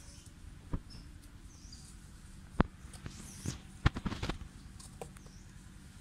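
Sharp clicks and taps of cardboard being handled by macaques, loudest about two and a half seconds in, then a quick cluster around four seconds. A few faint high chirps sound in the background.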